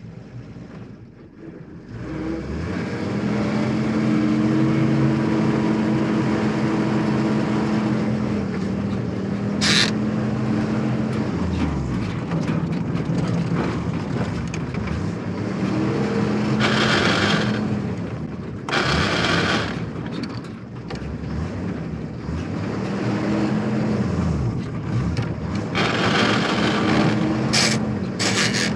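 Military truck engine running, its pitch climbing and dropping several times, with short hissing bursts now and then.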